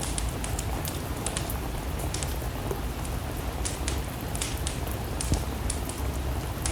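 Steady rain hiss with a wood fire crackling, irregular sharp pops every fraction of a second, and one louder pop about five seconds in.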